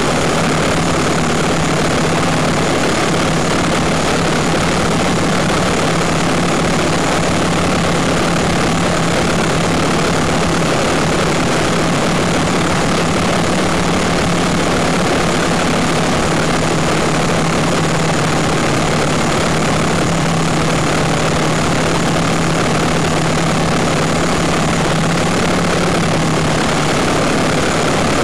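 Quadcopter's electric motors and propellers running in flight, picked up on the airframe: a steady low hum under a dense rushing noise.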